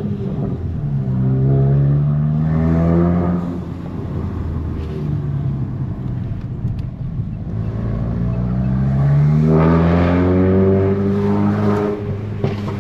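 Volkswagen Golf GTI Mk8's turbocharged four-cylinder engine pulling under acceleration on a test drive. Its note rises, falls back about three and a half seconds in, then climbs steadily again from about eight seconds until near the end.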